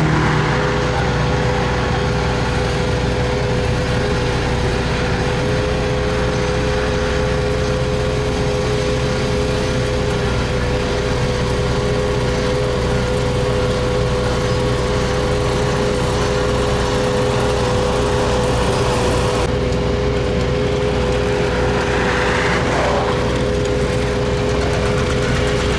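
Heavy diesel road-paving machinery running steadily, with a constant whine over the engine rumble. About three-quarters of the way through, a brief tone slides downward.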